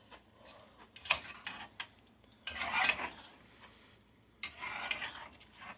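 Kitchen dishes and utensils being handled: a sharp clink about a second in, then two longer scraping rubs, one near the middle and one near the end.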